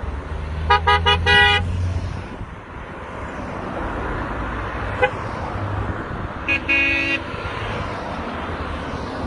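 Car horns honking as cars drive past in a line: four quick beeps about a second in, and another burst of beeps, the last one longer, near seven seconds. Steady engine and tyre noise from the passing traffic runs under them.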